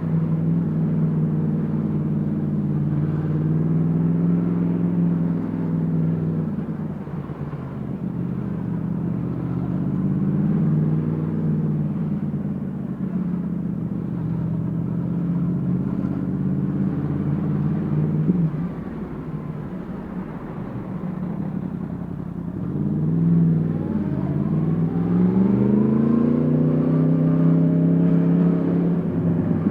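Yamaha MT-10 SP's crossplane inline-four through an Akrapovic exhaust, its pitch rising and falling as the rider opens and closes the throttle in traffic. It settles lower and quieter past the middle, then revs up hard, climbing steeply in pitch near the end.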